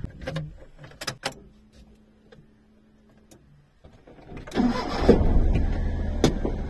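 A few sharp knocks and clicks as the van is boarded, then about four and a half seconds in the van's engine is cranked and starts, running steadily at idle.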